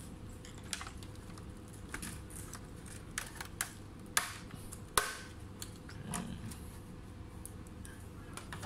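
Plastic snap clips of an Asus FX504GD laptop's bottom cover clicking as the cover is pried loose and lifted off, a run of scattered sharp clicks with two louder snaps about four and five seconds in.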